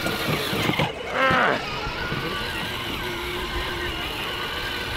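Electric motor and gearbox of a Mack ride-on toy truck whining steadily as it drives on asphalt, with a brief high call about a second in.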